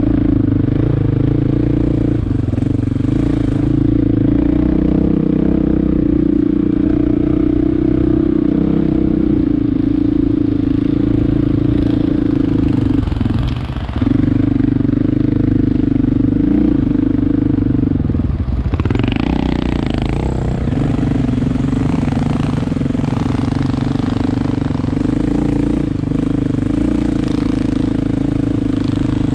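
An engine running steadily and loudly, its pitch dipping briefly about 13 seconds in and again about 18 seconds in, with some clattering noise just after the second dip.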